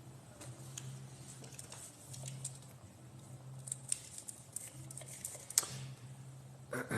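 Faint scattered small clicks and taps over a low hum that comes and goes.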